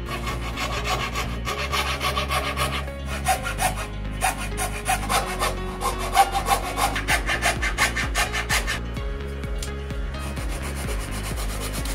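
Hand fret saw cutting through plywood in quick back-and-forth strokes, about three a second. Near the end the sawing stops and gives way to softer rubbing of sandpaper on the plywood edge.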